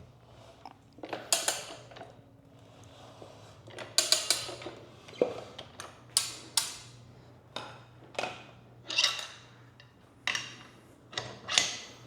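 Irregular metallic clanks and scrapes from a Rabaconda tire changer and rim as the back bead of an old motorcycle tire is worked off, about a dozen sharp knocks spread unevenly, with a faint steady hum underneath.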